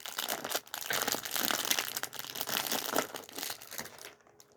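Crinkling and rustling of a small plastic packet of Lego pieces being handled and opened, with many small crackles, for about four seconds before it dies down near the end.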